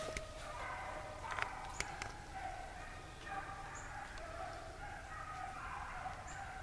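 A pack of rabbit hounds baying in the distance, running a swamp rabbit on its scent trail, calls overlapping throughout. A few sharp snaps of brush underfoot in the first two seconds.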